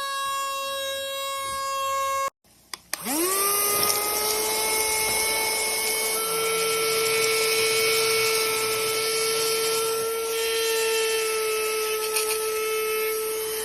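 Small rechargeable handheld vacuum cleaner's motor running with a steady high whine. About two seconds in the sound cuts out abruptly, then the motor starts up again, its whine rising in pitch over about a second before it settles and runs steadily.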